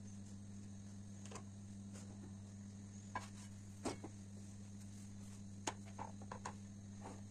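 Light clicks and taps of flatbread being handled at the stove: a cooked lavash is lifted out of a nonstick frying pan onto a wire basket, and a fresh round of dough is laid in the pan. Underneath is a low steady hum.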